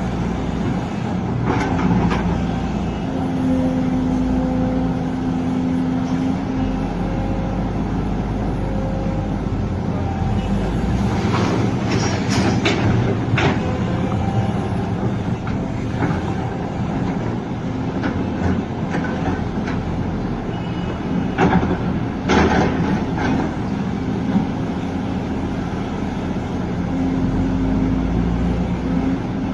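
Hydraulic excavator working: a steady engine drone with a hydraulic whine that swells twice, broken by clanks and rattles, loudest about a third of the way in and about three quarters of the way in.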